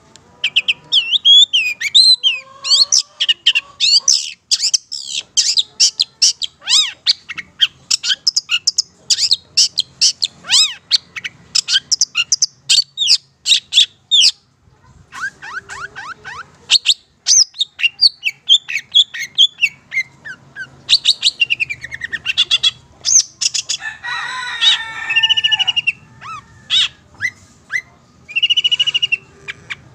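Long-tailed shrike (cendet), Madura type, singing in long runs of rapid, high chattering and whistled notes and quick sweeps. There is a short pause about halfway, a harsher buzzy phrase about three-quarters of the way through, and a drawn-out whistled note near the end.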